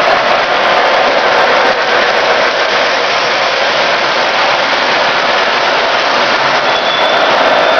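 Model electric trains running on metal track: a steady whirring rumble of their motors and wheels on the rails.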